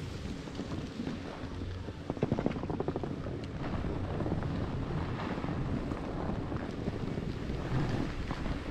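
Wind rushing over an action camera's microphone while skiing downhill, over the hiss of skis sliding on snow, with a louder patch of scraping about two seconds in.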